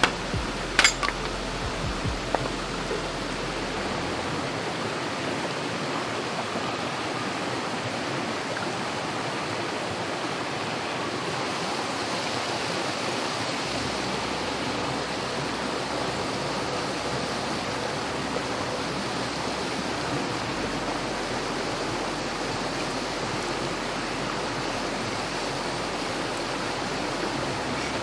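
Steady rushing noise of running water, even throughout, with a few sharp knocks in the first two seconds.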